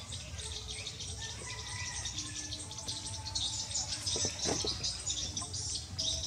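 Birds chirping against a steady high insect buzz, with a few short whistled notes scattered through.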